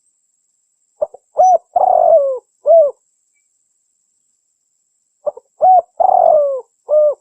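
Female spotted dove cooing: two phrases about four seconds apart. Each opens with a faint short note and runs into three low coos, the middle one the longest and falling at its end.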